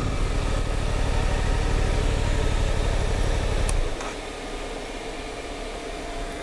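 Suzuki GSX-8S's 776 cc parallel-twin engine idling with an even pulse, then cut off about four seconds in, leaving only a faint hiss.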